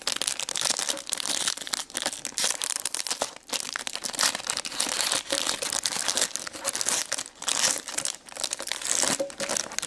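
Crinkly toy packaging being handled and torn open: a dense, irregular crackle with sharp little snaps throughout.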